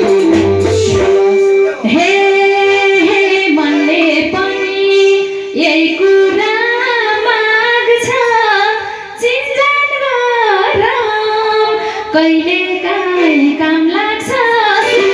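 Woman singing a Nepali dohori folk song into a microphone, with the live band's accompaniment underneath; a steady instrumental note is held under the first few seconds.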